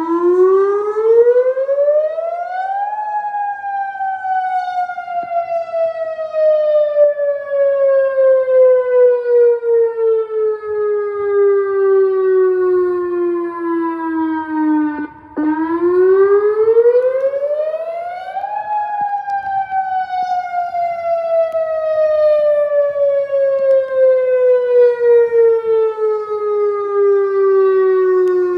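Outdoor tornado warning siren sounding a wail during a test. Its pitch climbs quickly for about three seconds, then slowly sinks for about twelve. It briefly drops out halfway through and starts a second climb.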